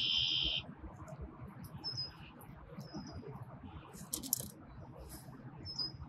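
Marsh ambience with small birds chirping: a loud, harsh, high burst right at the start, then a few brief high chirps and a quick run of clicks about four seconds in, over a faint low rumble.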